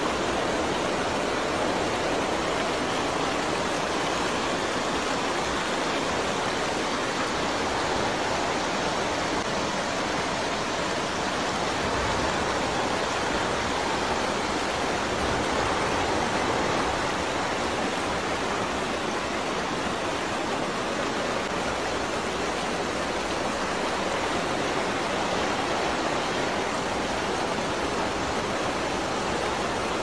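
Tall waterfall of muddy floodwater pouring down a cliff face: a steady, even rush of falling water.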